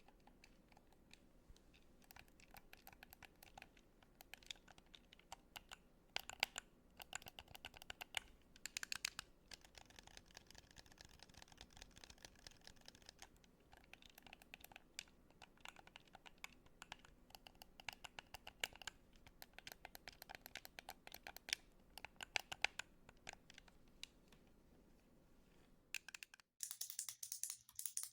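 Buttons pressed and clicked close to the microphone, in quick runs of sharp clicks with short pauses between them. A little before the end the sound switches suddenly to a brighter, scratchy rustle.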